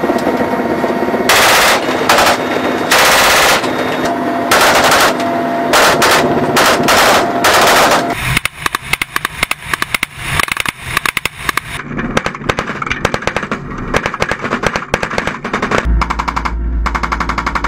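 Machine gun fired from a helicopter's door mount in several bursts of about half a second to a second each, over a steady whine from the helicopter's turbines. From about eight seconds in, a rapid stream of separate sharp shots from weapons fired out of the helicopter cabin, with a deep engine and rotor rumble joining near the end.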